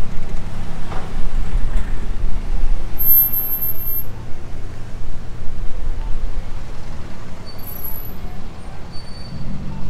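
Street traffic: a steady low rumble of passing cars and heavier vehicles.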